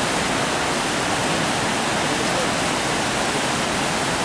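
Rain-swollen creek water rushing fast: a steady, loud rush of floodwater with no breaks.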